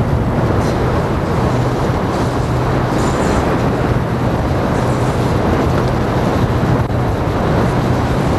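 Freight train running by: a steady, loud rumble with a constant low drone.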